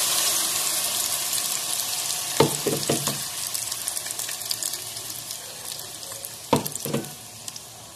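Blended chilli paste frying in hot oil in a non-stick pan: a loud sizzle that dies down slowly as the paste cooks. A few short knocks of stirring come about two and a half seconds in and again near seven seconds.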